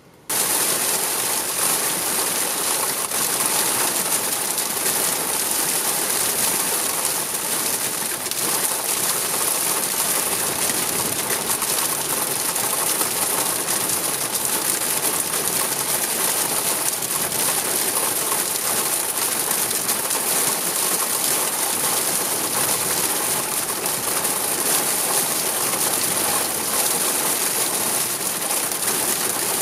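A large flock of birds calling continuously under the steady hiss of heavy rain. Both come in abruptly just after the start.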